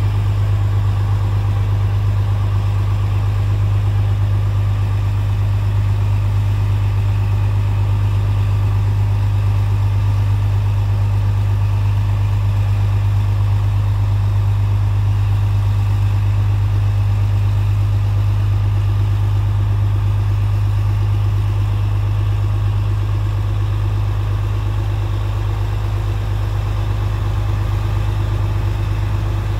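Armored recovery vehicle's engine running steadily with a deep, even hum while it works its crane boom.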